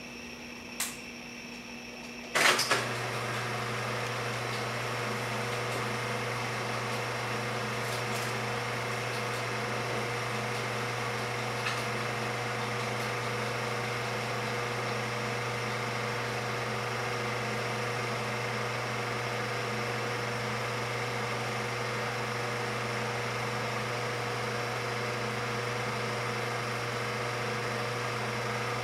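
Cine film projector switched on with a loud clack about two and a half seconds in, then its motor running with a steady hum and whir.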